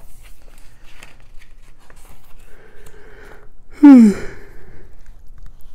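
A man coughs once into his fist about four seconds in, a short, loud cough with a voiced tone that drops in pitch, after a breath in. Faint rustling of magazine pages around it.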